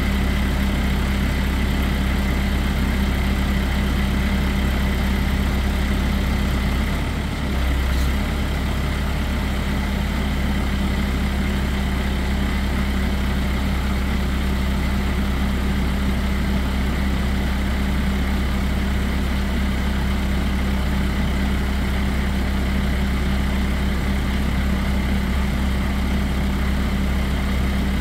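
Nissan Cabstar 35C11 truck's diesel engine idling steadily while driving the hydraulics of its truck-mounted aerial platform as the boom is lowered. There is a brief dip in the engine note with a small click about eight seconds in.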